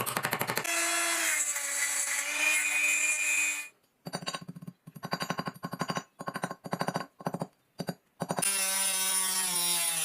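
Small power tool running on metal lighter parts during restoration: a steady motor whine for about three seconds, then a run of short on-off bursts, then a steady whine again that sags slightly in pitch near the end.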